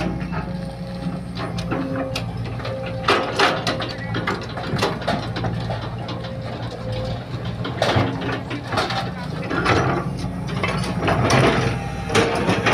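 Sumitomo hydraulic excavator's diesel engine running steadily, with repeated knocks and scrapes from the bucket digging and loading soil.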